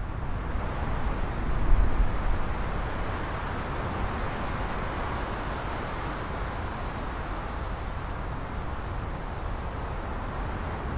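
Wind blowing steadily, a rushing hiss over a deep rumble, swelling about two seconds in.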